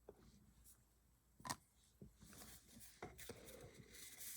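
Mostly near silence, with a few faint clicks and soft rustling from trading cards being handled and flipped through.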